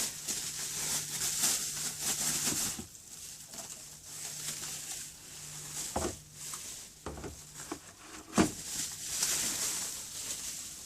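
Rustling and crinkling of packaging as a pack of track-saw guide rails is handled and unpacked, with a few knocks, the sharpest about eight seconds in.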